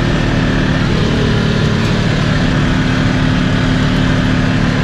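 Polaris Ace 570's single-cylinder engine running at a steady, even pitch while the machine is driven along a rutted trail.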